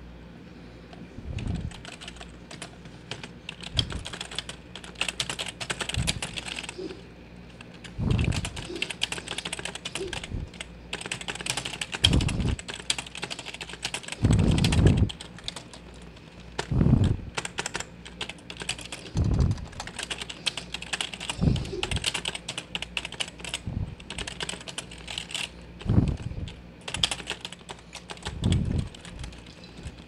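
Fast typing on a cheap Chonchow membrane gaming keyboard, sold as having Cherry MX Blue switches: a dense run of loud, plasticky keycap clacks. A heavier, deeper thud comes about every two to three seconds.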